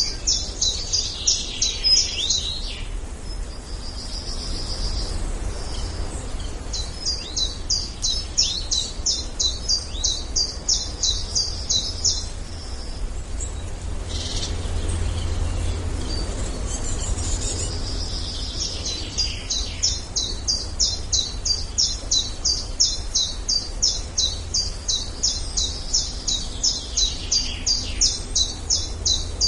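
Forest birds singing: long runs of rapidly repeated high chirps, about three or four a second, that stop and start again several times, over a low steady rumble.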